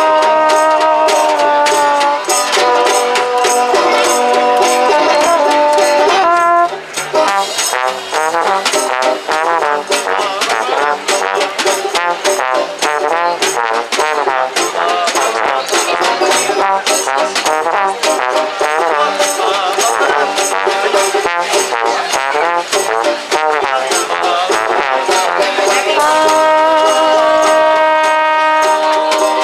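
Small acoustic swing-jazz band playing, with a trombone leading over double bass and brushes on snare and cymbal keeping a steady beat. The trombone holds long notes at the start and again near the end, with a busier, wavering line in between.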